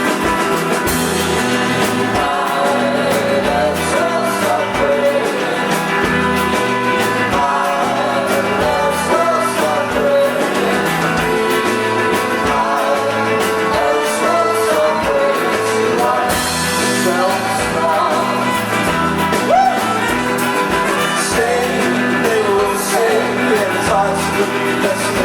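Rock band playing a song live, with a singing voice over the instruments.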